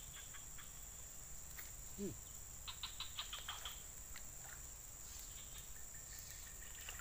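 Steady high-pitched insect drone from the surrounding vegetation, with one short falling note about two seconds in and a quick run of faint ticks about three seconds in.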